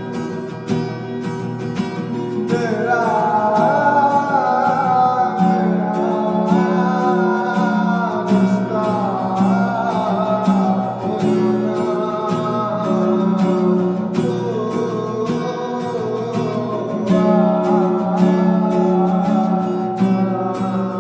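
Background music: a Hindi film song, with a steady beat and guitar, and a sung melody line that wavers up and down coming in about two and a half seconds in.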